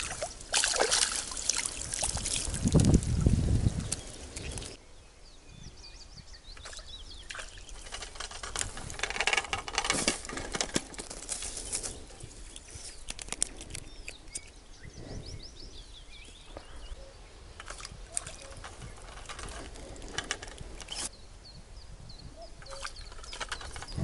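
Water splashing and sloshing in the shallow creek for the first few seconds as a hand works in it, then rustling of grass and handling noises, with small birds chirping now and then.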